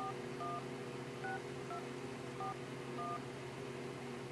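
iPhone 4 keypad touch tones as a phone number is typed in: six short beeps, each two tones sounding together, one per key press, at an uneven pace over about three seconds.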